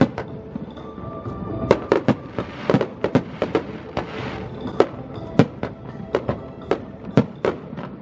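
Aerial fireworks shells bursting in a rapid, irregular string of sharp bangs, about two to three a second, with a brief hiss about halfway through. Music plays underneath.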